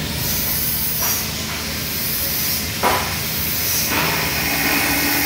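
Steady hiss of a TIG welding arc on carbon steel pipe, with a low hum beneath and one sharp knock about three seconds in.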